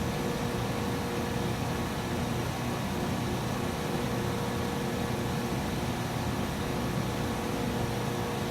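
Steady machine hum and hiss from running equipment, with a faint constant tone and no change.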